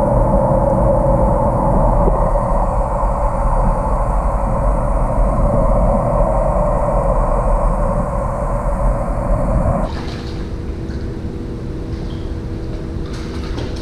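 Steady, muffled water noise picked up by a camera submerged in a fishing pond. About ten seconds in it changes abruptly to the thinner, open-air sound of the rippling water surface, with a few light ticks.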